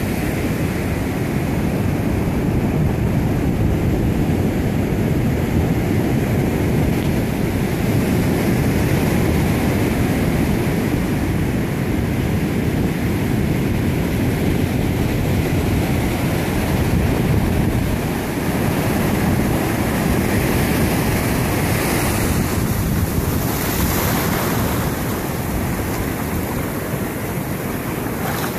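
Surf washing steadily over a sandy beach, with wind buffeting the microphone.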